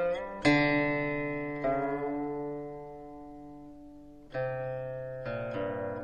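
Slow background music on a plucked string instrument: about five single notes, each ringing out and slowly fading, with a long pause of dying sound in the middle.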